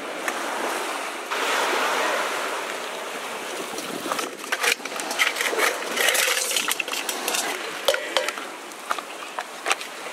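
Sea surf washing steadily. From about four seconds in, a run of sharp irregular clicks and cracks as live crabs' shells are handled and broken in a steel bowl.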